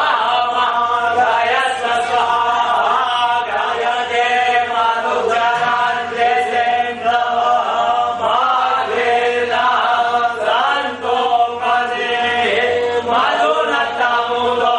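Voices chanting a Hindu devotional mantra in a continuous melodic line.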